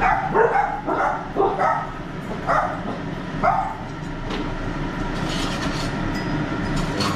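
A run of short, sharp bark-like calls, about seven of them in the first three and a half seconds, over a steady low background hum.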